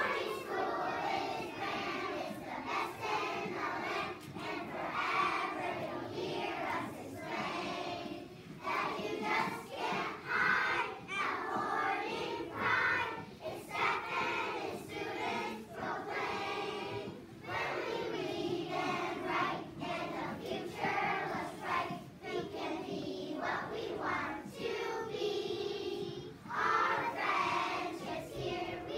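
A large choir of young children singing a song together.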